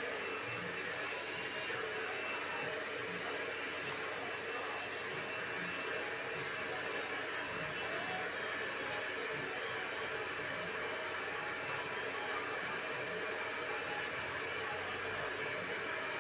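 Handheld hair dryer running steadily, blowing air at a constant speed.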